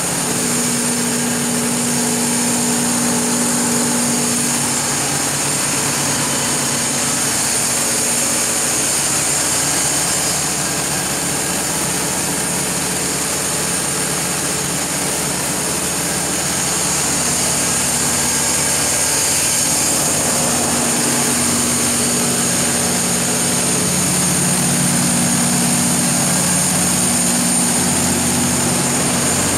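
The Mitsubishi S12A2 V12 diesel engine of a Kohler 760 kW standby generator set running steadily at constant speed, with a steady high-pitched whine over it. It grows slightly louder from about two-thirds of the way in.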